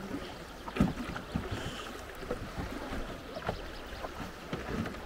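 River water rushing and lapping around a wooden Dunajec raft as it drifts downstream, with a few sharp knocks, the loudest about a second in.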